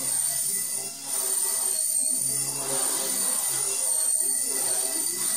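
Brushless-converted Blade Nano CP X micro collective-pitch RC helicopter in flight: a high-pitched motor whine over a rotor buzz, the pitch wavering slightly as the throttle and rotor load change.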